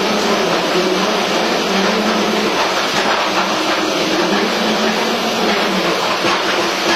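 Pile-drilling rig running: a loud, steady mechanical drone with a constant low hum underneath.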